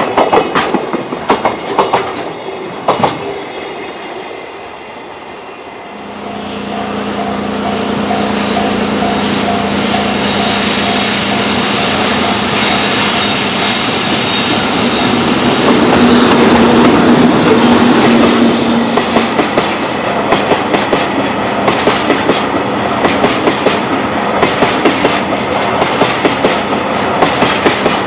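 A train passing close by, its wheels clacking over rail joints. The clatter of one train fades in the first few seconds. After a short lull a second train approaches, loudest a little past the middle, and then its wheels clatter over the joints in a fast, steady rhythm.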